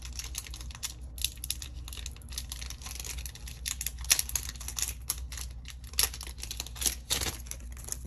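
Foil Pokémon booster-pack wrapper crinkling and the cards inside rustling as the pack is handled and the cards are drawn out: a dense run of small crackles and clicks, with a few sharper ones about four, six and seven seconds in.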